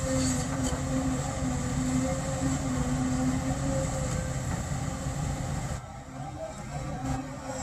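Diesel engine of a Cat hydraulic excavator running steadily under load as it digs and swings, a constant-pitched hum. It drops noticeably quieter about six seconds in.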